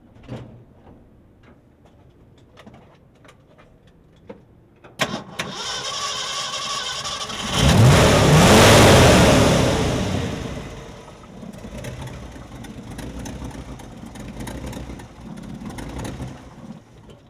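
1966 Ford F-100's V8 engine being started after a few faint clicks: it catches about five seconds in, is revved up hard for a couple of seconds, then drops back to a fluctuating idle. It runs through mufflers that have a couple of holes in them.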